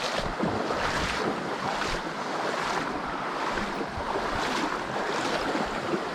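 Creek water running and splashing steadily over rocks, an even hiss.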